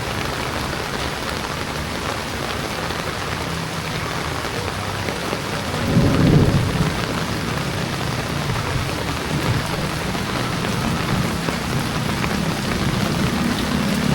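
Heavy rain pouring steadily, with a brief low rumble about six seconds in.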